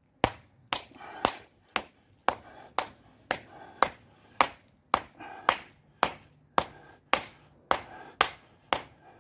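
Small ball-peen hammer striking a quartzite boulder to spall it, a steady run of sharp metal-on-stone cracks about two a second, with chips breaking off the rock.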